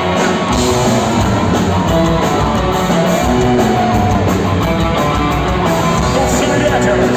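Live rock band playing an instrumental passage of the song, guitar and drum kit, with the bass and drums filling in about half a second in.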